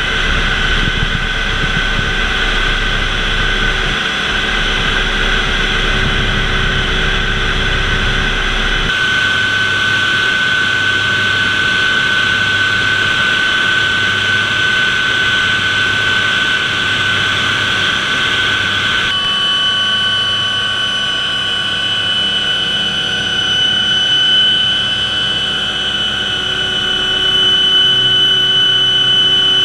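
Hughes OH-6A Loach helicopter heard from inside the cockpit in flight: its Allison T63 turboshaft engine gives a steady high whine over a loud, constant engine and rotor drone. The pitch of the whine shifts abruptly twice.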